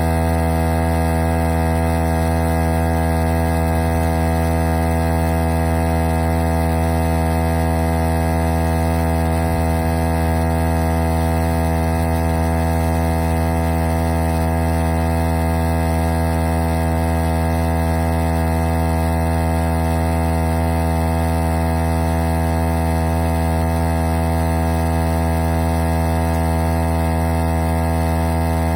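VIAIR 88P portable 12-volt tire inflator running: a constant, steady motor hum that does not change.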